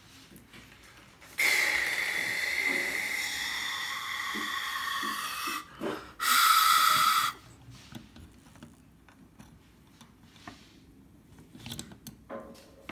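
A loud hiss with a faint whistle in it lasts about four seconds. It is followed a moment later by a second, shorter and louder hiss. Near the end come small clicks of hands handling the plastic Lego figure.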